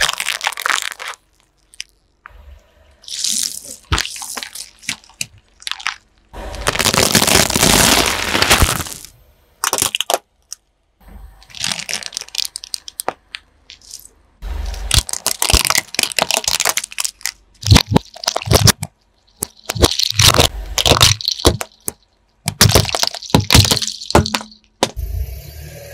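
A car tyre crushing assorted objects one after another, among them a plastic cake container, a bundle of chalk sticks and a plastic puzzle cube. It is heard as a run of separate cracks and crunches, some sharp and short and some drawn out over a couple of seconds, with near-quiet gaps between them.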